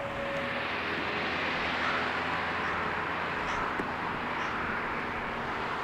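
Steady rushing outdoor background noise, swelling slightly about two seconds in, with no single event standing out.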